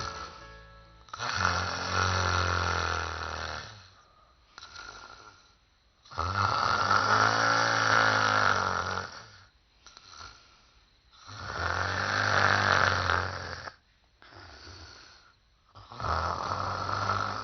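A woman snoring in a slow, regular rhythm: four long, loud snores, each two to three seconds long and about five seconds apart, with softer breaths in between.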